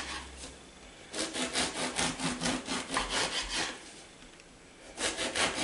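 Bread knife sawing through a crusty loaf of bread, the crust rasping in quick, even strokes. Two runs of sawing with a short pause between them.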